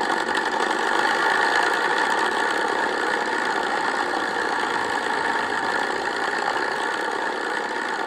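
A steady engine-like drone running evenly, with no change in pitch or loudness.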